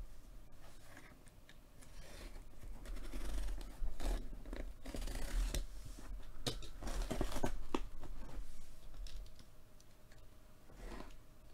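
A box cutter slitting and scraping along the packing tape on a cardboard shipping box, with hands rubbing and pressing on the cardboard. It is a run of scratchy strokes and small clicks, busiest and loudest through the middle.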